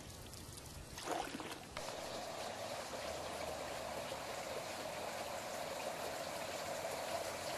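A canoe paddle splashing in pond water, followed by a steady trickle of water as the canoe glides.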